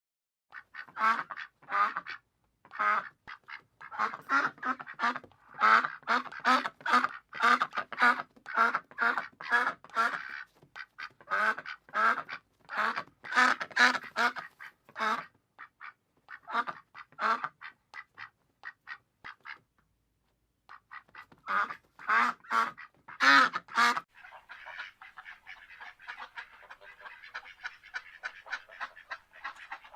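Ducks quacking: runs of loud, repeated quacks, broken by a short pause about two-thirds through. In the last few seconds the calls turn quieter and much faster, a dense chatter of many ducks.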